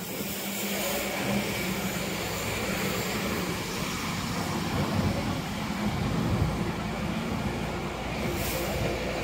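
Street traffic: a motor vehicle's engine running close by with a steady low hum, and a short hiss near the end.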